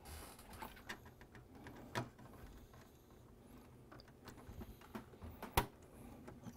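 Small clicks and rustles of coaxial cables and a connector being handled and pressed into a socket inside electronic test equipment, with a sharp click about five and a half seconds in as the connector is pushed home.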